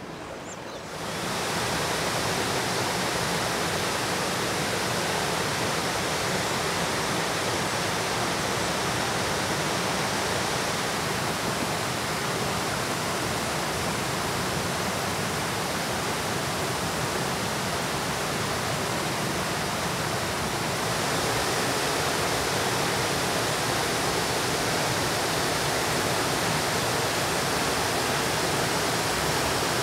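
Steady rush of water from a small waterfall cascading across a river, swelling about a second in and a little louder again near the two-thirds mark.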